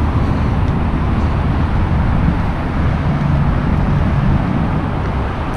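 Steady traffic noise from a busy main road: a continuous rush of passing cars with a low engine hum.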